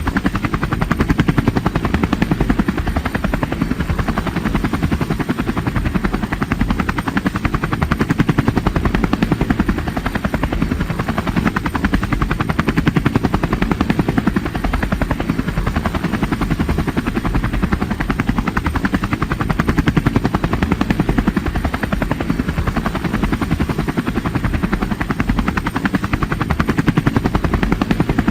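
Helicopter sound effect: a steady, rapid rotor chop that runs unchanged throughout.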